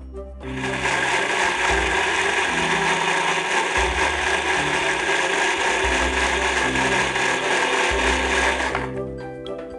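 Electric mixer grinder (mixie) with a steel jar running steadily as it grinds a pear and green-tomato puree with cashews and pumpkin seeds. It starts about half a second in and stops near the end.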